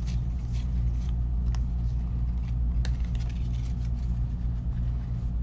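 A steady low hum with faint, irregular ticks and rustles from trading cards and pack wrappers being handled.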